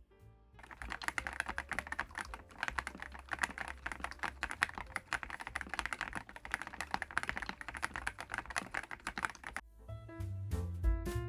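Fast, continuous typing on a DAREU EK75PRO gasket-mounted mechanical keyboard with DREAM HIFI switches, many keystrokes a second. It starts just under a second in and stops about a second and a half before the end.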